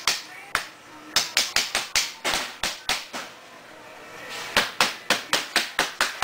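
Small wooden-handled mallet tapping along the aluminum frame of a plexiglass storm window: quick runs of sharp knocks, about four a second, with a pause near the middle and a faster run near the end.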